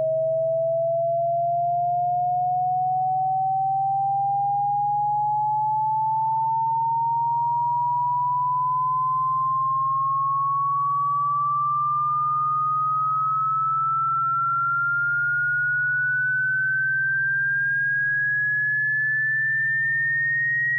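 Synthetic pure electronic tone sweeping slowly and smoothly upward in pitch, from a mid whistle to a high one, over a faint steady low hum. It is a sweep tone played as a cat-repellent sound.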